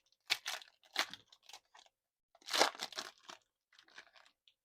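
Foil trading-card pack wrapper being torn open and crinkled by hand, in several short crackling bursts, the loudest about two and a half seconds in.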